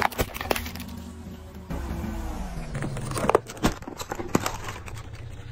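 A car tyre rolling slowly onto a hard plastic toy case and crushing it: the plastic creaks and gives way in a series of sharp cracks and snaps, the loudest a little over three seconds in, over a low steady hum.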